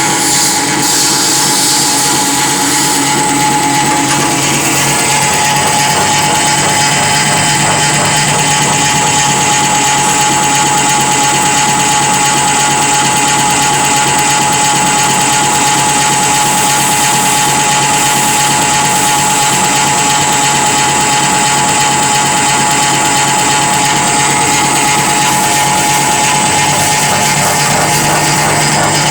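Pellet press for coconut coir dust and sawdust running steadily: a loud, even motor whine with a constant high tone.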